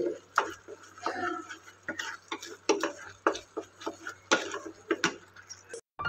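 Wooden spatula stirring thick, crumbly kalakand mixture (milk solids cooked down with sugar) in a dark pan. It scrapes and taps against the pan in irregular clicks, two or three a second, and stops abruptly just before the end.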